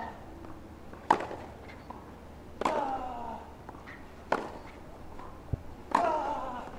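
Tennis rally on a clay court: racket strikes on the ball about every second and a half, four in all. A player lets out a short falling grunt with every other stroke.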